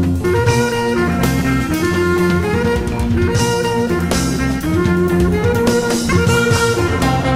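Jazz quintet of bass clarinet, guitar, marimba, double bass and percussion playing: held reed notes moving in steps over bass and guitar, with frequent percussion strikes.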